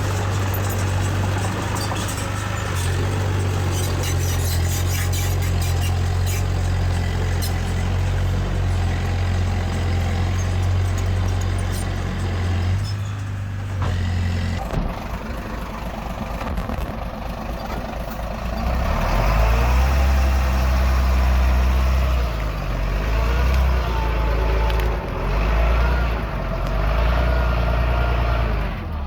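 Diesel engines of heavy earth-moving machinery working. A steady engine drone with rapid clanking runs for the first half. About halfway there is an abrupt change to a deeper engine note that swells and eases as the machine takes load.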